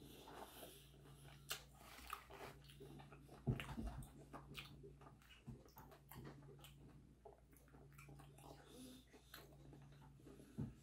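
Faint chewing and crunching of crispy deep-fried chicharon bulaklak, with scattered small clicks and a low thump about three and a half seconds in.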